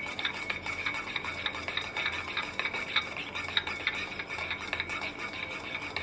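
A spoon stirring an orange drink in a metal tumbler, clinking against the side again and again, with a steady high ringing tone underneath.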